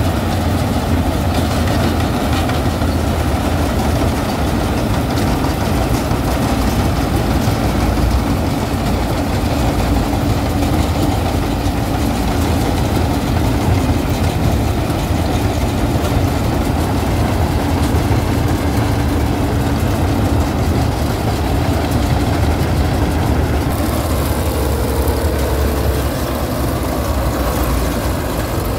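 Standard TSC-513 4x4 combine harvester running, its diesel engine and machinery giving a loud, steady, deep rumble with a constant hum.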